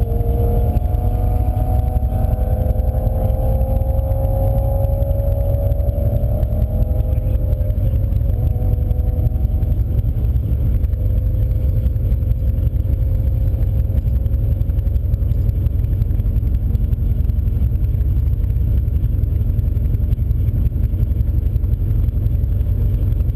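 Steady low rumble inside a moving car's cabin: engine and road noise. Over the first several seconds a faint whine slowly drops in pitch and then fades.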